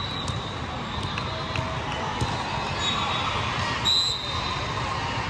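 Echoing hubbub of a large hall full of volleyball courts: scattered ball hits and voices, with a short referee's whistle about four seconds in.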